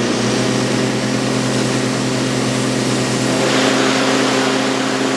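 Fire engine's engine running steadily at pump speed, driving a water spray. A hiss of spray grows louder about three and a half seconds in.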